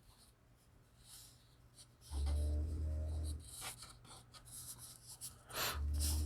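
Trading cards being handled and slid against one another: short scratchy rubs and light clicks. A low hum comes in twice, about two seconds in and again near the end.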